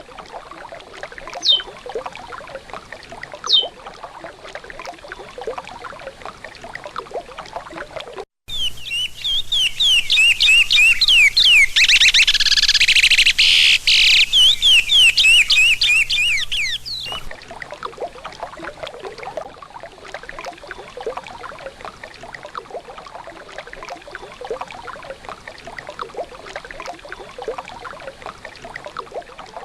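Curió (chestnut-bellied seed finch) singing a regional Sergipano song: a few single whistled notes near the start, then about a third of the way in a loud, rapid run of repeated whistles lasting about eight seconds, with steady rushing noise before and after it.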